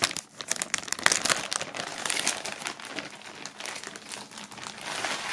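Clear resealable plastic bag crinkling and crackling as the T-shirt packed inside it is handled, with dense rapid crackles that ease off near the end.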